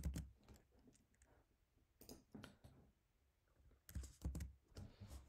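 Faint clicks and taps of a computer keyboard and mouse, in small clusters: a few near the start, a couple about two seconds in, and a quicker run of keystrokes near the end.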